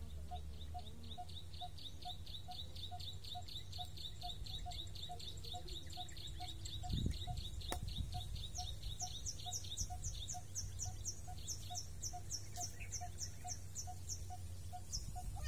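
Birds calling: a fast run of high, evenly repeated notes that shifts to a higher series a little past halfway, over a steady low note repeated about twice a second. One sharp click near the middle.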